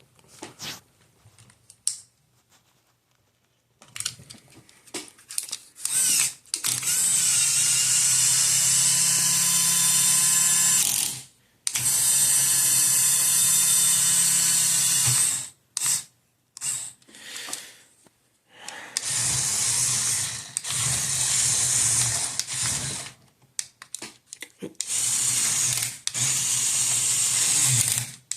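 Small electric motors of a Mould King 17010 remote-control building-block dump truck whining through plastic gears. They run in four bursts of a few seconds each, with short clicks and pauses between.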